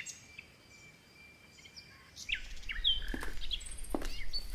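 Birds chirping with many short, quick calls. A low rumble joins about halfway through, with a couple of light clicks near the end.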